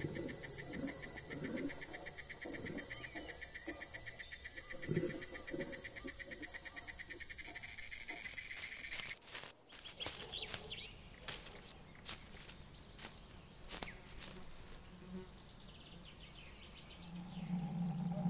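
Steady high insect buzzing with a fast-pulsing trill over soft footfalls; it cuts off sharply about nine seconds in. Scattered snaps and crackles of twigs and dry brush underfoot follow. A low musical drone swells in near the end.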